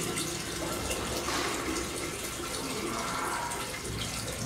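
Steady rush of flowing water in a storm drain, part of a TV drama's sound mix.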